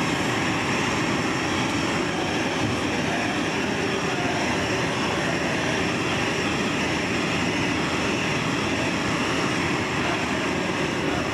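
Hand-held gas torch flame hissing steadily as it heats a large glass piece. Underneath is the steady low rumble of the glory hole's burner.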